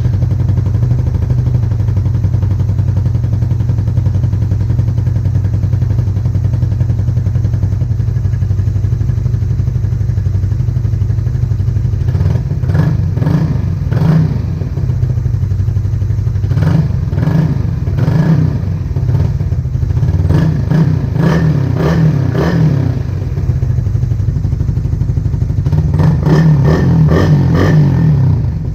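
Suzuki Raider Fi 150's single-cylinder engine breathing through an aftermarket black Indo exhaust can, idling steadily, then blipped several times in the second half with short rises and falls in revs.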